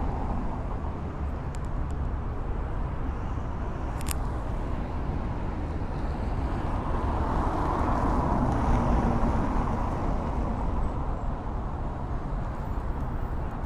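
City road traffic: cars driving over a cobbled road, with one passing closer and louder a little past the middle. A brief click about four seconds in.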